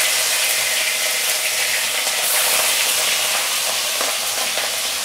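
Rui (rohu) fish pieces frying in hot mustard oil in a kadai: a steady, loud sizzle.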